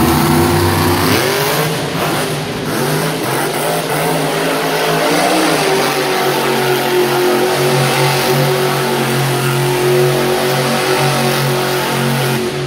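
Monster truck's supercharged V8 engine running loud and revving, its pitch wavering up and down.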